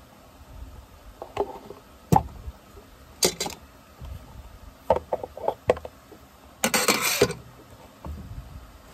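Workshop tools and parts handled at a workbench: scattered sharp knocks and clinks, a quick run of clicks, and a longer rattling clatter about seven seconds in.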